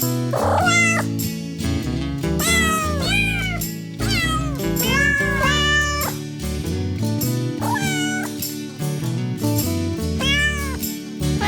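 A cat meowing about five times, long drawn-out meows a couple of seconds apart, over background music with steady chords.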